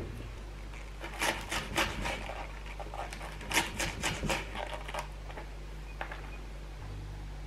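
Kitchen knife slicing spring onions on a wooden cutting board: two runs of quick, crisp cuts, the blade tapping the board with each stroke. A single knock at the start and another near the end, over a low steady hum.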